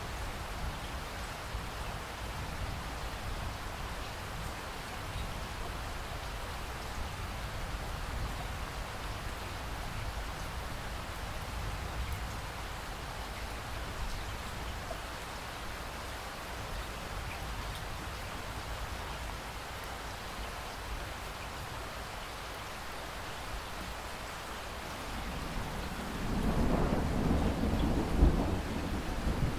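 Steady rain falling with a low rumble underneath. Near the end a louder roll of thunder builds up.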